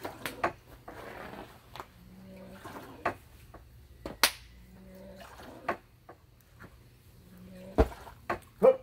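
Footsteps scuffing and shifting on gravel as a taekwondo form is performed, with scattered sharp slaps. The sharpest slap comes about four seconds in, as an elbow strikes into the open palm, and a heavy foot-stamp thump comes near the end.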